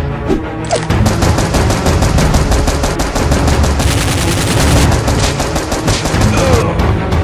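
Automatic machine-gun fire sound effect dubbed over a toy blaster: one long burst of rapid, evenly spaced shots that starts about a second in and stops shortly before the end.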